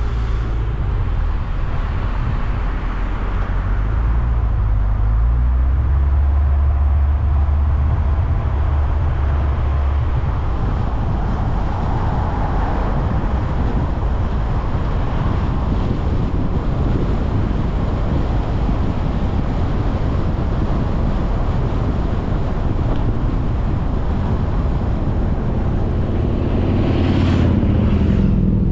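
A car driving at a steady speed: continuous engine and tyre-on-road rumble, heaviest in the low end for roughly the first ten seconds.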